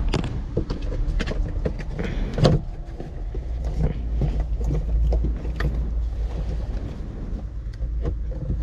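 An old vinyl-covered fibreboard interior side panel being pried and pulled off a 1972 VW Beetle's body by hand: scattered clicks, knocks and scraping as the retaining clips and panel edge give, with one louder knock about two and a half seconds in, over a steady low rumble.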